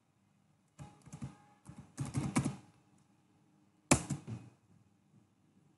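Computer keyboard being typed on: a few quick keystrokes in small groups, then a louder keystroke about four seconds in.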